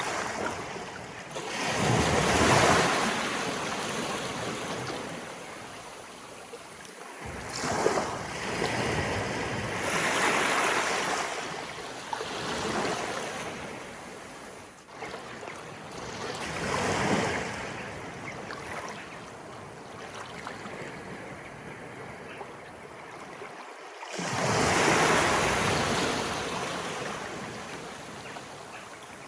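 Sea waves of an incoming tide washing in and breaking, in slow swells a few seconds apart; the loudest break near the start and another about four-fifths of the way through, with smaller ones in between.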